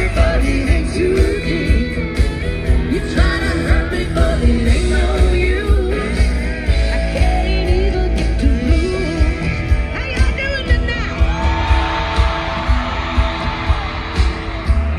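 A live country band playing with a woman singing lead into a microphone over a steady beat, heard loud through a concert sound system.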